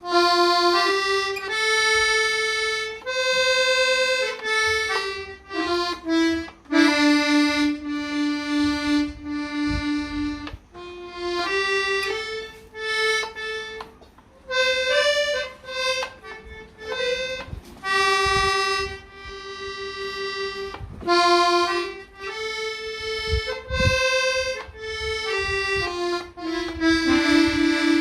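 Solo free-reed instrument playing a slow single-line melody, its notes held and separated by short pauses, with a few soft low thumps.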